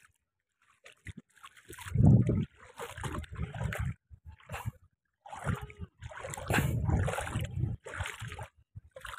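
Feet wading through shallow seawater on a tidal flat, splashing and sloshing in irregular bursts, the loudest about two seconds in.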